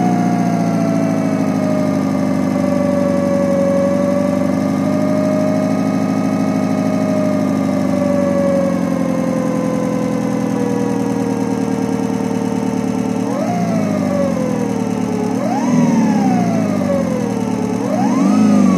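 Homemade electronic engine-sound simulator imitating a Subaru EJ20 flat-four with equal-length exhaust, idling just after start-up with a timing-belt whine that slowly settles lower. In the last third it is blipped three times, each rev rising sharply and falling back.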